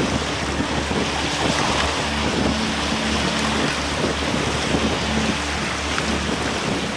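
Steady wind buffeting the microphone: a constant rushing hiss over a low rumble.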